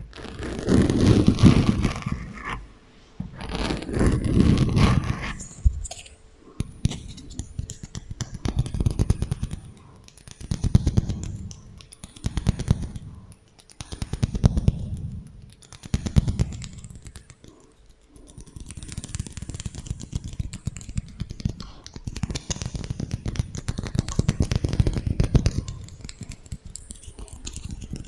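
Rapid tapping and scratching on small objects, in dense runs of clicks that swell and fade every second or two, with an echo effect.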